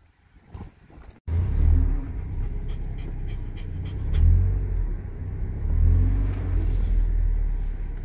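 Heavy low rumble of a car driving, with wind buffeting the microphone, cutting in abruptly about a second in after near quiet.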